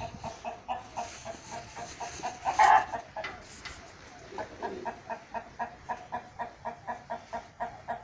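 Chicken clucking in a steady run of short clucks, about four a second, with one louder call about two and a half seconds in.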